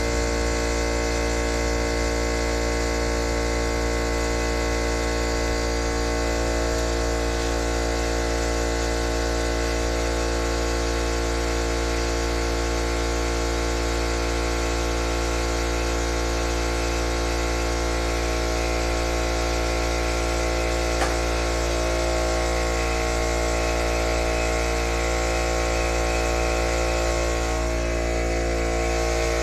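Harbor Freight McGraw 8-gallon 1.5 HP oil-free air compressor running steadily, its motor and pump filling the tank with a constant drone.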